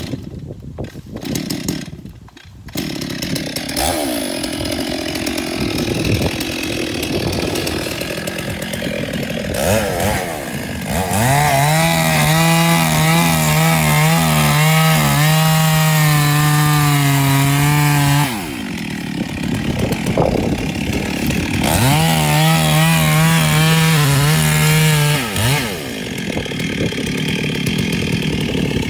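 Stihl two-stroke chainsaw settling into an idle a few seconds in. It is then run at full throttle for about seven seconds while cutting into the base of a mahogany trunk. It drops back to idle, goes to full throttle again for about three seconds, and idles to the end.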